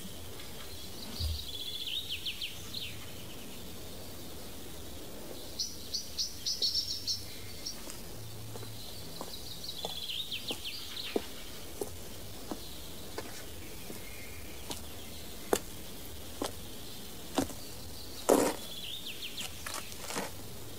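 Countryside ambience: birds chirping in several short, quick trills over a steady background hiss, with scattered clicks, the loudest about eighteen seconds in.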